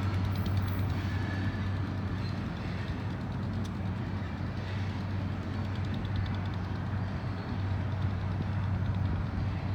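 Diesel-hauled freight train rolling past slowly during a roll-by inspection: a steady low locomotive drone under a constant rumble of rail noise, with a few faint ticks.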